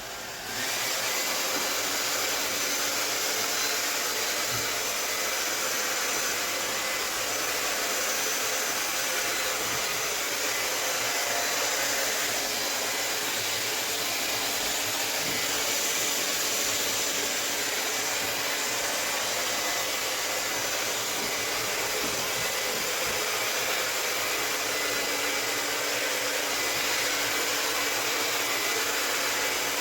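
Hair dryer switched on right at the start, then blowing steadily: a constant rushing of air over a faint motor whine.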